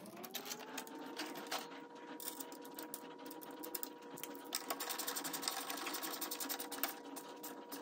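A small battery-powered tool spins up over the first second and runs steadily, with a rapid clicking over its motor whine, tightening the V-band clamp that joins the turbo to the muffler.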